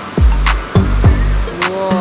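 Background music with a steady beat: deep bass kicks and sharp snare hits, with a short gliding melody line near the end.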